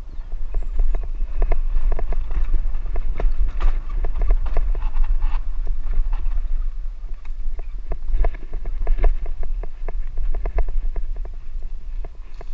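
Mountain bike rattling and knocking irregularly as it bounces over a rough dirt singletrack, with wind buffeting the helmet camera's microphone in a steady low rumble.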